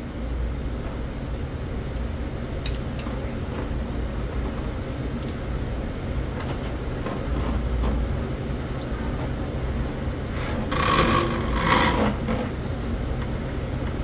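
RIDGID K-50 sectional drain-cleaning machine running, its electric motor humming steadily as the spinning cable works in a plugged drain line, with small ticks and a louder clatter lasting about two seconds near the end.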